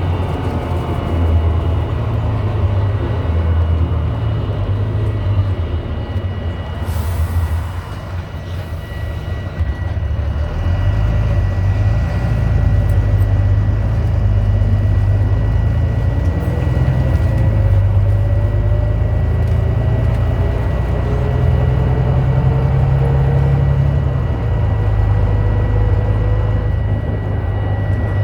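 Volvo B9TL double-decker bus with its ZF Ecolife automatic gearbox, heard from on board: the diesel engine rumbles, a short hiss of air comes about seven seconds in, then the bus pulls away with the engine and gearbox whine rising through the gears. A constant high beep runs underneath, set off by something loose at the back of the bus.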